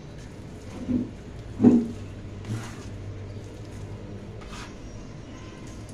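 Hands kneading sticky, still-shaggy bread dough on a floured counter, at the early messy stage of kneading. There are two dull thumps about a second in, the second louder, then soft scrapes, with a plastic dough scraper working the dough.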